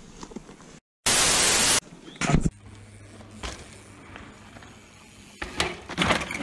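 A loud burst of static hiss lasting under a second, right after a brief dropout about a second in. After it, a sharp knock and, near the end, a run of clattering knocks from a mountain bike riding over a dirt trail.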